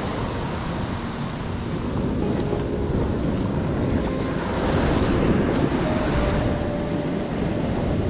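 Sea surf washing in steadily, with wind buffeting the microphone.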